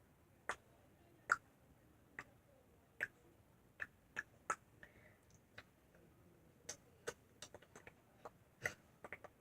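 Glue-and-laundry-detergent slime being worked by hand, giving small sharp clicks and pops at irregular intervals, more of them near the end.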